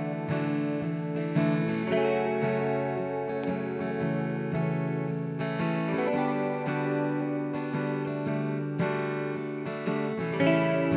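Background music: an acoustic guitar strumming a steady rhythm, with no singing yet.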